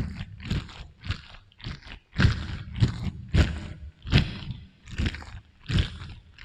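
Close-miked chewing of juicy fruit with an echo effect: a wet crunch of strawberry or watermelon flesh roughly every half second.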